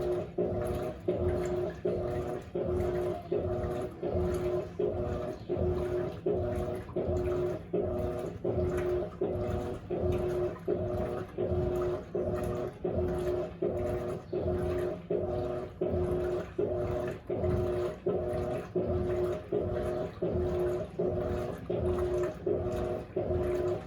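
An Electrolux LAC16 top-load washing machine agitating, its 1/4 hp WEG motor humming and reversing in a steady rhythm of about three strokes every two seconds, with water churning in the tub.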